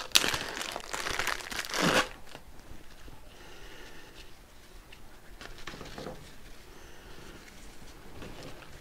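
Nylon webbing strap being unrolled and handled: rustling and crinkling, loudest for the first two seconds, then fainter scattered rustles.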